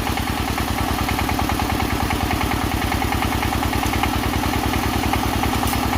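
Engine of a soil-boring drill rig running steadily with a fast, even pulse, driving the drill into the soil.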